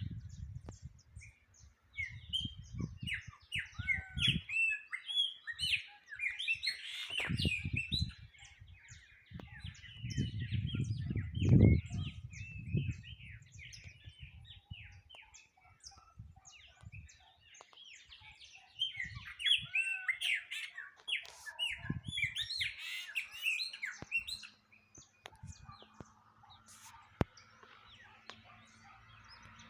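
Many small songbirds chirping and singing together in two busy spells of overlapping chatter. Low rumbles on the microphone come and go beneath them, the loudest about halfway through.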